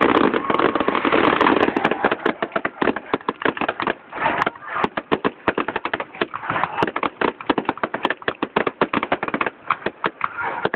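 Aerial fireworks crackling: a dense run of rapid, irregular sharp pops, loudest and thickest in the first two seconds and going on through the rest.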